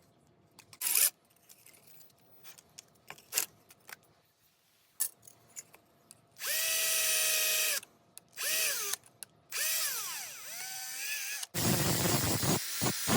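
Electric drill run in three short bursts, its motor whining at a steady pitch and winding down each time the trigger is let go, after a few sharp clicks of metal being handled. Near the end a louder noise starts that pulses about three times a second.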